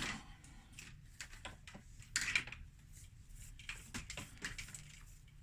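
Scattered light clicks and taps with a short rustle about two seconds in: small parts and packaging being handled.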